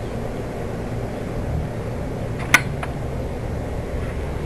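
A sharp metallic click about halfway through, with a fainter one just after it, as a metal stand pole is seated back into its bracket. A steady low hum runs underneath.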